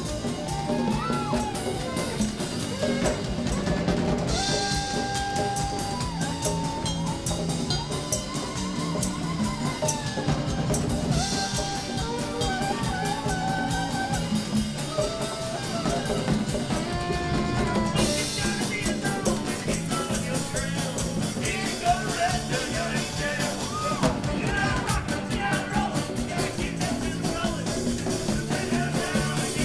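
A live band jamming: a drum kit keeps a steady beat under guitar, and a lead melody bends up and down in pitch.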